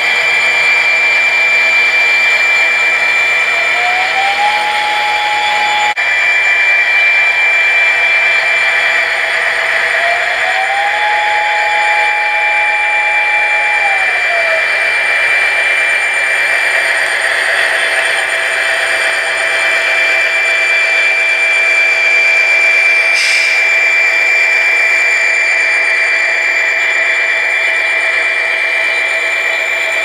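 Digital sound decoders in HO-scale EMD SD40-2 model locomotives playing diesel locomotive running sound through their small onboard speakers, with a steady high whine. A tone rises, holds and falls twice in the first half, and there is a brief hiss about two-thirds of the way through.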